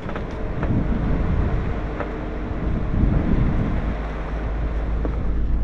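Ram ProMaster camper van creeping along a rough dirt road: a steady low rumble of engine and tyres, with a few faint knocks and rattles.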